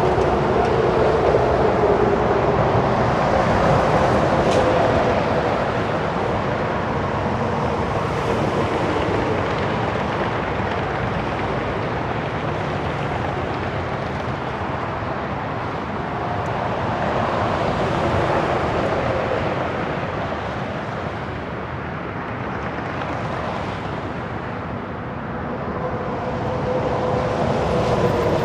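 Heavy highway traffic with many commercial trucks passing: a continuous rush of tyres and engines that swells and fades every few seconds as each vehicle goes by, with a low engine drone at times.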